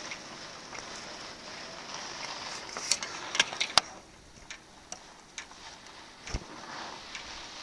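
Steady hiss of hurricane wind and rain, with a quick cluster of sharp clicks about three seconds in and a few scattered ticks after. The hiss drops off about four seconds in.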